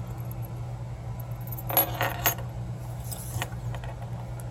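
Small metal parts of a gutted American 1100 padlock clinking as they are handled, with a quick cluster of clicks about two seconds in and a lighter clink a little later.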